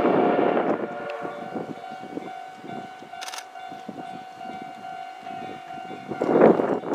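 C58 steam locomotive of the SL Paleo Express working away from the station, its exhaust chuffing in uneven beats, loud at first, fainter in the middle, with a loud chuff near the end. A steady tone is held from about a second in until about six seconds.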